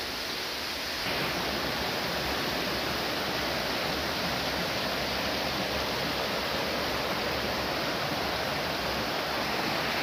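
Stream water rushing down a small cascade over rock slabs: a steady, even rush that grows slightly louder about a second in.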